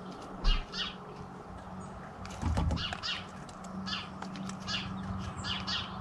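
Short, high bird calls repeat every second or so over a steady low hum. Two dull thumps, the loudest about half a second in and another about two and a half seconds in, come from a great spotted woodpecker clinging to and pecking at a wire suet-ball feeder.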